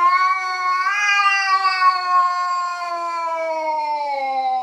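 Domestic cat holding one long drawn-out meow that falls slowly in pitch and breaks off near the end.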